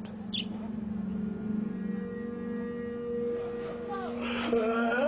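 Soundtrack music: a sustained drone of steady held tones, with a wavering male singing voice coming in near the end.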